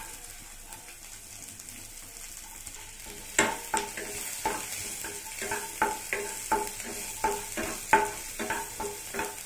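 Small onions sizzling in melted butter in a nonstick pan. From about three and a half seconds in, a wooden spatula stirs and scrapes them against the pan in quick strokes, two or three a second.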